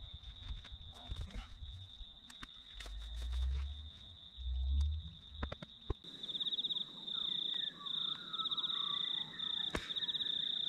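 Insects trilling in long grass at dusk: a steady high-pitched drone, which after a cut about six seconds in becomes louder pulsed trilling in bursts of about a second with short gaps, with faint bird-like chirps beneath. Before the cut, low rumbles and scattered clicks sound under the drone.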